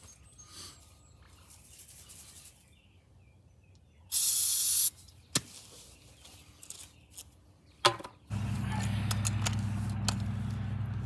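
An aerosol can sprays one short, loud hiss of propellant for a homemade combustion potato launcher, about four seconds in. Two sharp clicks follow, and from about eight seconds in a steady low hum sets in.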